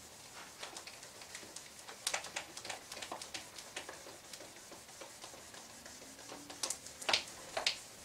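Marker writing on a whiteboard: a run of quick, faint scratchy strokes, with a few louder ones about two seconds in and again near the end.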